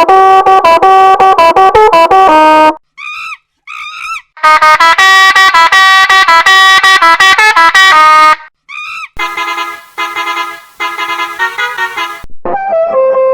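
Edited variations of a bus-horn jingle, one after another: runs of rapid, short, pitched horn toots that change in pitch and timbre, with three short warbling chirps about three seconds in and a tone bending in pitch near the end.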